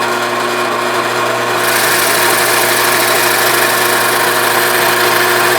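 Drill press running free with a sanding disc chucked in, not yet touching the board: a steady motor hum and whir that grows a little louder and brighter in the first two seconds, then holds steady.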